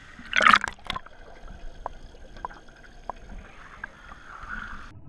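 Water splashing and lapping around a kayak at the waterline of a pool, with a loud splash about half a second in and scattered drips and small splashes after. Near the end the sound cuts off sharply to a dull rumble as the camera goes below the surface.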